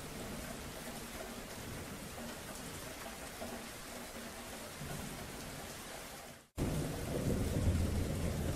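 Rain falling with low rumbling thunder. About six and a half seconds in, the sound fades quickly to silence and then starts again at once, with a louder low rumble just after.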